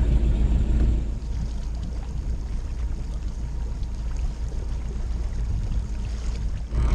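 Steady low rumble of a trolling fishing boat under way, its motor running with water and wind noise, a little louder for the first second.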